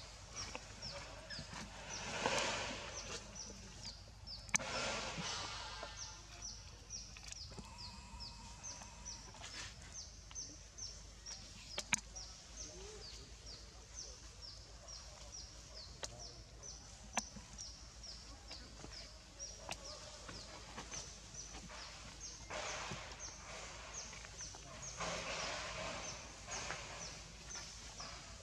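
Outdoor wildlife ambience: a short, high chirp repeated evenly about three times a second throughout, with a few louder rustling bursts.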